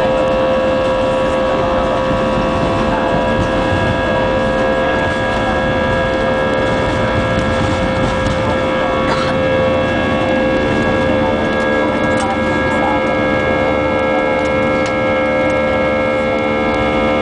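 Airbus A320 turbofan engines at takeoff power, heard inside the cabin: a loud, steady rushing noise with several steady whining tones over it.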